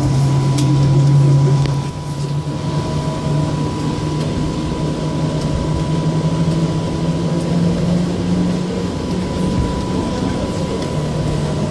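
Inside the SkyLine people-mover train running along its track: a steady low motor hum that steps up in pitch about two seconds in and then slowly rises, over a rumble, with a constant high tone throughout.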